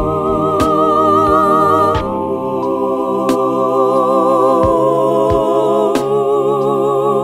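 Background music: held, wavering vocal-like tones with occasional sharp percussive hits.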